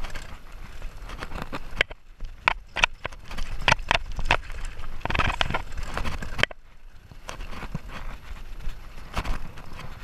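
Mountain bike descending a dirt trail at speed: tyre noise on loose earth with a run of sharp rattles and knocks as the bike jolts over bumps, briefly quieter a little over halfway through.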